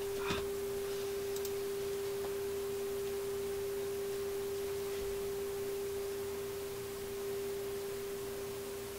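Steady single-pitch test tone, about 400 Hz, from the Marconi 201A tube radio's speaker. It is the signal generator's AM modulation tone coming through the radio while the generator is tuned to the radio's IF frequency for alignment.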